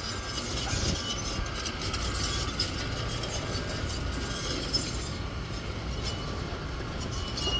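Distant, steady rumble of a departing Boeing 717's rear-mounted Rolls-Royce BR715 turbofans as it climbs away, overlaid with rapid irregular clicking and rattling.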